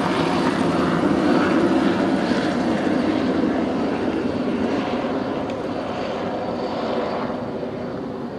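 Two-bladed light helicopter flying low overhead: steady rotor and engine noise, loudest in the first couple of seconds, then slowly fading as it moves away.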